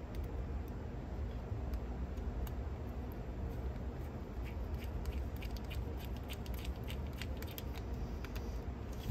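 Precision screwdriver driving small screws into the metal chassis of a cassette deck's tape transport: a run of light, quick clicks and ticks, thickest in the second half, over a steady low hum.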